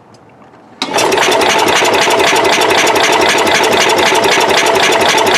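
Cub Cadet 108's single-cylinder Kohler engine cranking over on its starter, starting about a second in, a fast even churning that does not catch. It is being spun over to test for spark after the ignition points were cleaned: a no-start.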